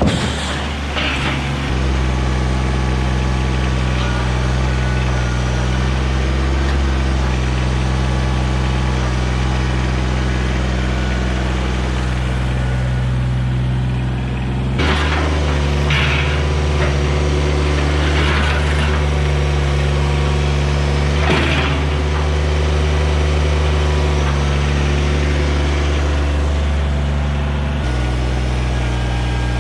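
Kubota BX24 compact tractor's diesel engine running at a steady throttle, its note shifting about two seconds in, halfway through and near the end. A few short clatters come in the middle.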